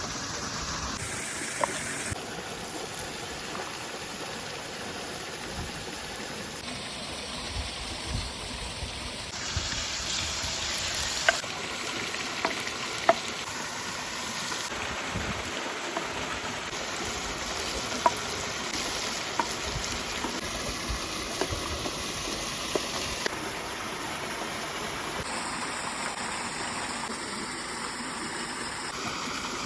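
Food sizzling in a pan over steady rushing water from a waterfall, with scattered sharp clinks.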